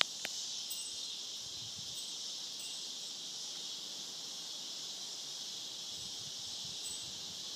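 Steady high-pitched chorus of insects, an even unbroken drone.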